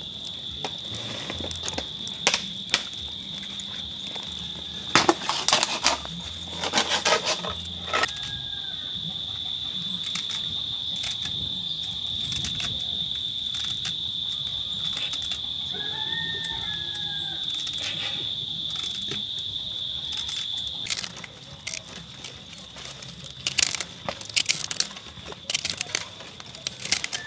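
A steady, high-pitched insect drone that stops about three-quarters of the way through. Over it come bursts of rustling and clatter from hand work, as callaloo leaves are stripped from their stems into a metal pot.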